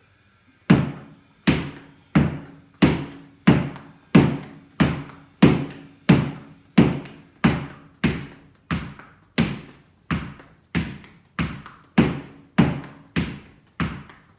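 Two tennis balls thrown rapid fire against a garage wall, hitting it in an even run about three times every two seconds. Each hit rings briefly.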